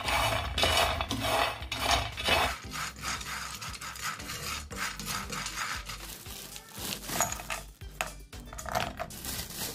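Almonds being stirred in a metal pan with a wooden spatula: a rhythmic scraping and rattling of nuts over the pan, about two strokes a second, loudest in the first few seconds.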